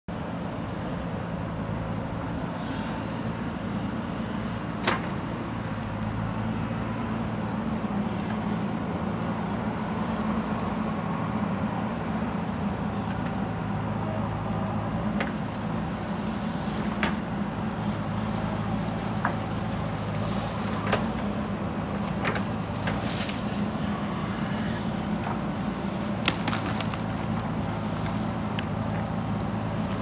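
JCB 3DX backhoe loader's diesel engine running steadily while the backhoe digs soil. Several sharp clanks and knocks from the bucket and arm, most of them in the second half.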